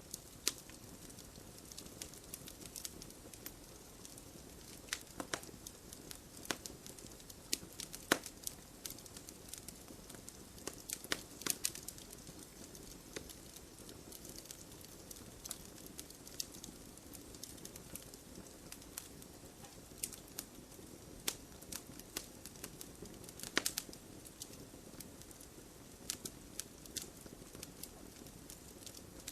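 Wood campfire burning: a steady soft hiss with frequent sharp, irregular crackles and pops.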